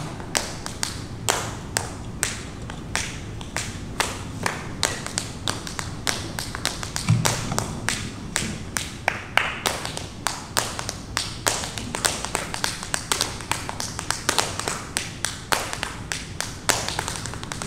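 Tap shoes striking a dance floor in an unaccompanied tap-dance solo: quick, irregular runs of sharp taps, with a heavier stomp about seven seconds in.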